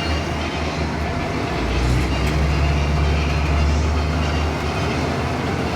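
2015 Blue Bird Vision school bus running, heard from inside the cabin: a steady low engine drone over road noise. The engine drone grows louder from about a second and a half in and eases back near the end.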